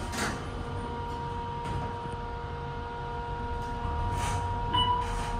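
Passenger elevator riding up, with a steady hum and low rumble; a short chime sounds near the end.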